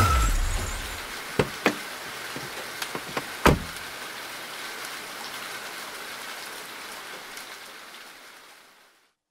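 Rain falling steadily, opening as a loud noise dies away; a few sharp knocks sound in the first few seconds, the loudest a heavy thud about three and a half seconds in. The rain fades out near the end.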